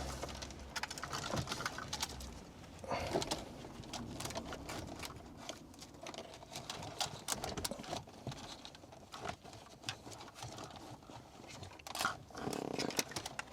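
Faint rustling and scattered light clicks of wiring looms and plastic connectors being pushed and tucked into the dashboard cavity by hand.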